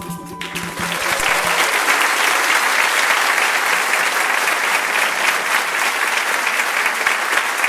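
Live audience applauding at the end of a samba song, while the band's last held notes die away in the first second or two.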